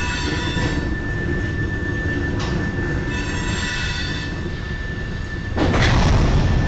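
A freight train's cars roll past with a steady rumble and a high, thin wheel squeal. About five and a half seconds in, a sudden loud crashing and grinding breaks in: the sound of cars derailing.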